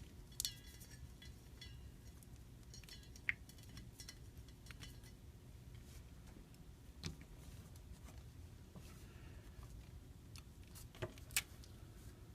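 Faint, scattered clicks and light taps of small repair tools against a phone's small internal parts, with a few sharper ticks here and there over a low steady hum.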